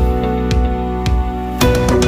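Background music: a soft acoustic guitar tune with a steady beat.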